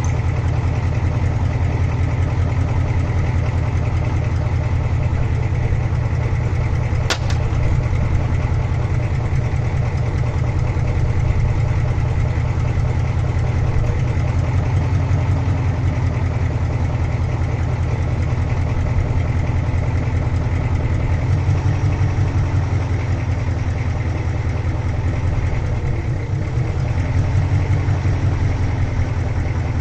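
Ford 6.9-litre V8 diesel running at idle with an even, rhythmic beat. The idle wavers slightly in pitch a couple of times in the second half, and there is one sharp click about seven seconds in.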